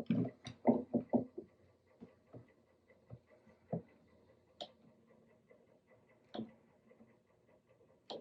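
Workbench handling sounds of a guitar repair: a quick run of wooden knocks in the first second and a half, then scattered single knocks and clicks. A faint, steady ticking about three times a second runs beneath.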